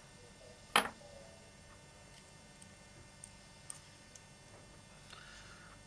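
One sharp click a little under a second in, then a few faint small ticks: a precision screwdriver set down on a tabletop and small metal parts being handled.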